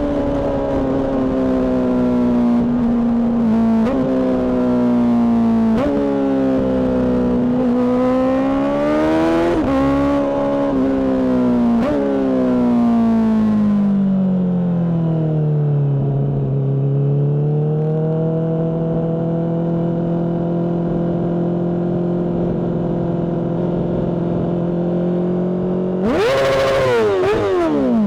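Honda CBR600RR inline-four with a Mivv aftermarket exhaust, ridden with the revs climbing and dropping through gear changes, then falling away to a steady cruise. Near the end the engine revs up sharply and drops back down.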